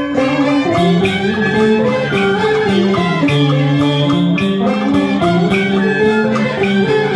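Southern Vietnamese ceremonial music (nhạc lễ) played by a traditional instrumental ensemble. Plucked strings lead a lively, continuous melody over a steady low line.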